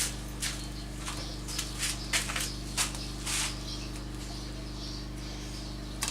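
A quick, irregular run of light clicks and taps from small objects being handled during a glue job, thinning out after about three and a half seconds, over a steady low hum.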